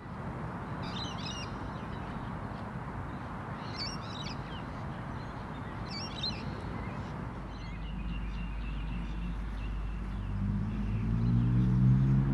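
Short bursts of outdoor bird calls, three of them a couple of seconds apart, followed by a thinner high steady note, over a steady background rush. Near the end a louder low droning, pitched sound comes in and swells.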